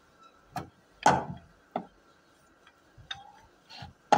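Wooden rolling pin knocking against a round wooden board while rolling out roti dough: five uneven wooden knocks, the loudest about a second in.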